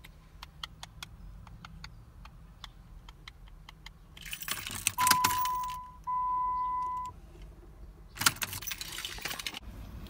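Key ring jangling at the ignition of a Dodge Nitro that cranks but won't start, in two rattling spells, with light scattered clicks before them. Between the spells, a steady beep sounds twice, about a second each time.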